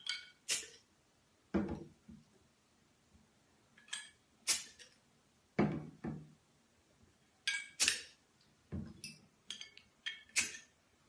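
Full glass beer bottles handled on a table top: a string of sharp clinks as the bottles knock against each other, and several heavier thuds as bottles are set down.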